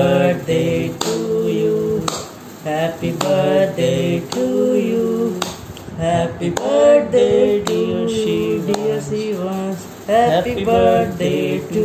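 Two men singing a birthday song together, without instruments.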